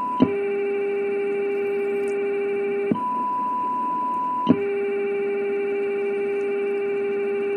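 Test tones from a software-defined radio receiver demodulating two amplitude-modulated signal generators on one channel, over a steady hiss. About a quarter second in, with a click, the strong generator's lower, buzzier tone with overtones replaces the weak one's higher pure tone. Near the three-second mark the strong tone drops out with a click and the weak tone is back at once, until a second click about four and a half seconds in brings the strong tone back. The instant recovery of the weak tone is the sign of a very fast AGC.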